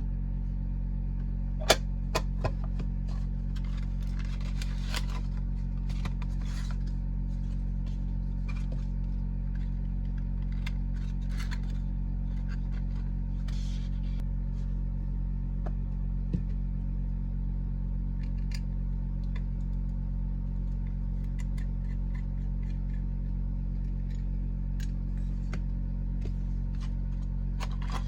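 Small clicks and soft rustles of a diecast model's packaging being handled during unboxing, over a steady low hum. The sharpest clicks come about two seconds in and again about midway.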